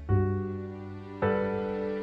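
Soft background music: piano chords struck twice, just after the start and again about a second in, each ringing on and fading slowly.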